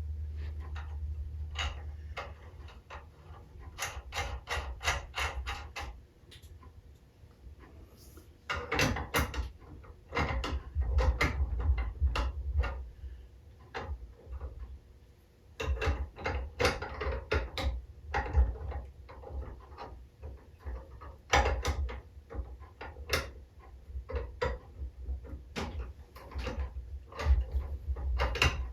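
Parts of an aluminum compressed-air engine being handled and fitted by hand: irregular clicks, taps and knocks coming in clusters, with a low rumble at times.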